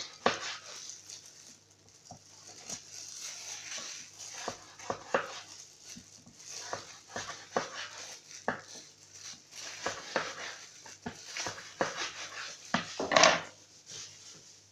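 Knife cutting raw pumpkin into thin strips on a cutting board: irregular knocks of the blade through the flesh onto the board, with a louder cluster of cuts near the end.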